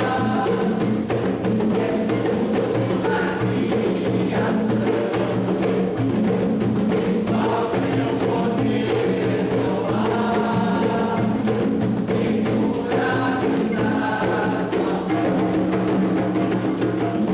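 A mixed group of men and women singing a song together in chorus at a steady level.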